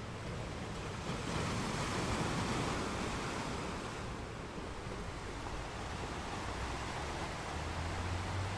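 Sea waves breaking and washing on the shore, one wave swelling about a second in and slowly easing off, with a low rumble underneath.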